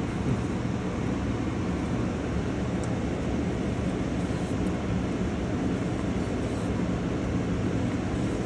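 Steady low rumbling noise, with a couple of faint high ticks.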